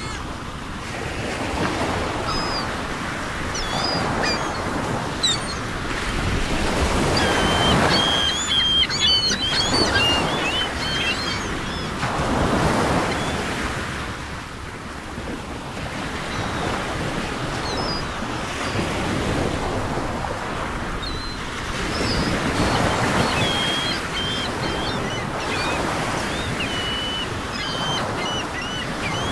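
Ocean surf: waves washing in and out in slow surges every few seconds, with short high bird calls over them in bunches.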